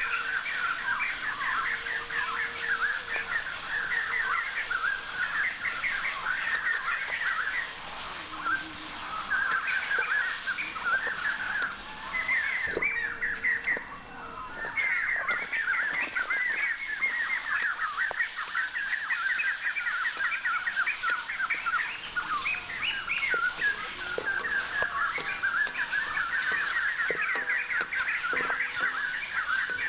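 Many birds chirping and chattering without pause, with a short drop about thirteen seconds in. A few faint knocks sound underneath.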